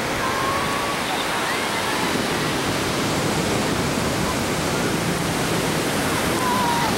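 Steady rushing of surf breaking on the beach, mixed with wind on the microphone.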